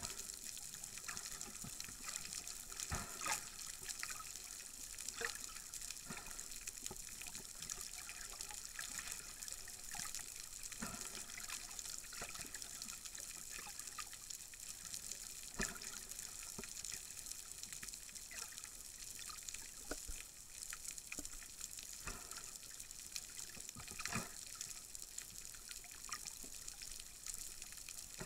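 Underwater ambience heard by a submerged camera: a steady hiss of moving water with scattered sharp clicks and crackles, a few of them louder.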